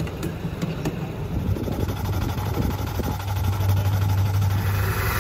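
A small engine running steadily with a low hum, growing louder over the last couple of seconds.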